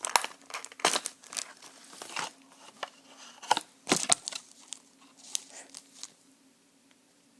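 Eye-drop packaging being opened by hand: irregular crinkling and tearing that dies away about six seconds in.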